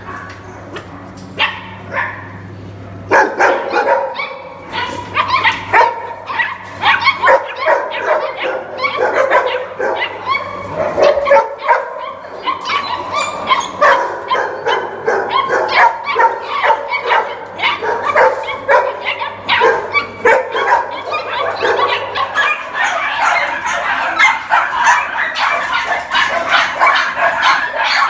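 Many kennelled dogs barking and yipping at once, a dense chorus of overlapping barks that starts about three seconds in and keeps going.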